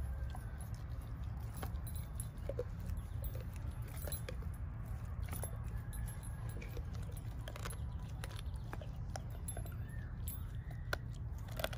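A Doberman chewing on a raw squirrel carcass, with scattered small clicks and the metal links of its choke-chain collar jangling as it works its head, over a steady low rumble.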